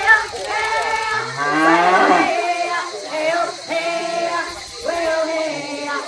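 High-pitched, childlike cartoon voices making wordless, sing-song sounds, with one voice sliding upward about a second in.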